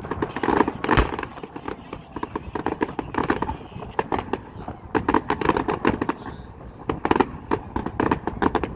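Aerial fireworks going off in a dense string of sharp bangs and crackles, with a heavy boom about a second in.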